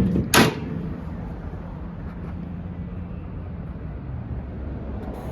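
A single sharp metallic knock about half a second in, over a steady low hum of machinery in the background.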